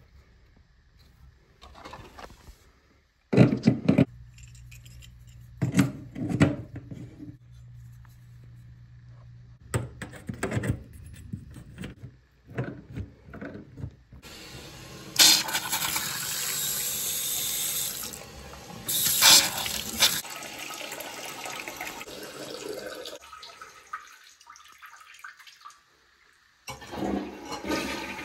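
Knocks and clunks of a wrench and hands on a toilet's braided supply line and angle stop valve, then, about halfway through, water rushing steadily through the fill valve into the toilet tank for several seconds. Another burst of rushing water comes near the end.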